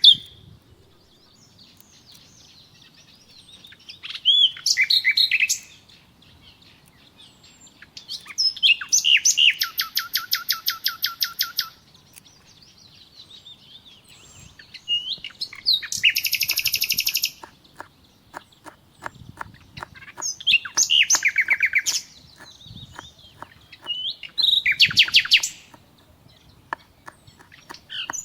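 A songbird singing repeated phrases of rapid trilled notes, a phrase every four seconds or so. The longest trill comes about eight seconds in.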